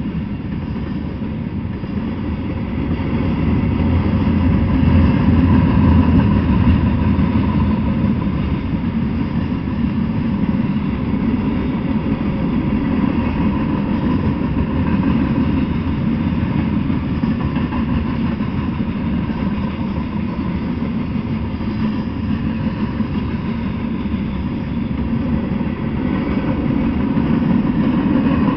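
Freight train of tank cars, covered hoppers and gondolas rolling past: a steady low rumble of wheels on the rails. It grows a little louder about four seconds in and again near the end.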